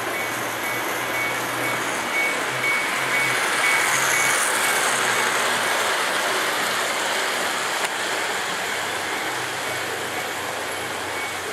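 Several model trains running at once on a multi-track layout: a steady running noise of motors and wheels on the track, with a faint high tone that comes and goes.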